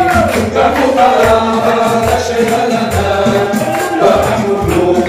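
Congregational worship singing: many voices singing a song together with accompanying music and a steady beat.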